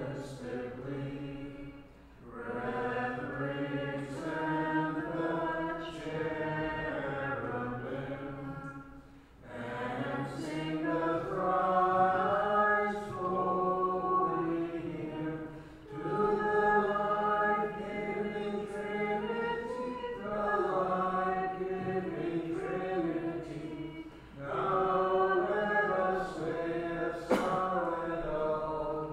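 Unaccompanied voices singing Ukrainian Catholic (Byzantine-rite) liturgical chant in phrases several seconds long, with short breaks between them. There is a single sharp click near the end.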